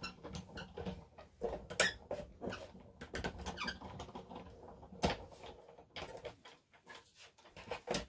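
Paper and card stock being handled on a craft desk: a string of light rustles and taps, with a sharper click about two seconds in and another about five seconds in.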